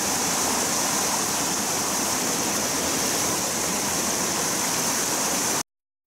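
Mountain stream pouring over a small waterfall, a steady rush of water. It cuts off abruptly near the end.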